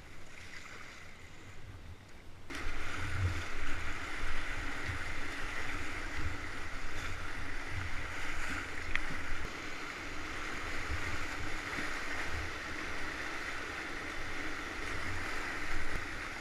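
A kayak paddle splashing on calm river water, then, from a sudden change about two and a half seconds in, the steady rush of whitewater rapids around the kayak, with irregular low thumps.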